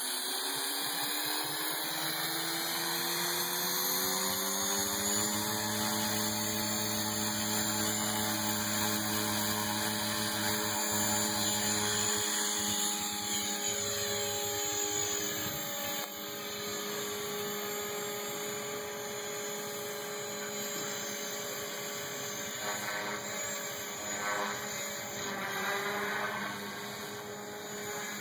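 Align T-Rex 500 flybarless electric RC helicopter spooling up: the whine of its motor and rotor rises in pitch over the first five seconds, then holds steady as it lifts off and flies. The pitch wavers and shifts during manoeuvres over the last few seconds.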